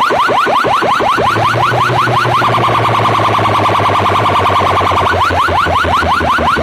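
Siren effect played very loud through large DJ loudspeaker boxes: rapidly repeating rising sweeps, about four or five a second, with a steady held tone and low hum under them in the middle.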